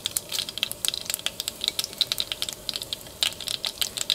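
Mustard seeds popping and dried red chillies frying in hot coconut oil: a dense, irregular crackle of sharp little clicks as the tempering splutters.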